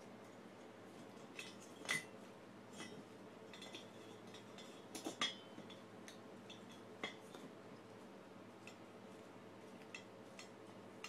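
Scattered light metallic clinks and taps of the Yamaha Towny MJ50 engine's aluminium cylinder head and small parts being handled and fitted, the loudest about two seconds and five seconds in, over a faint steady hum.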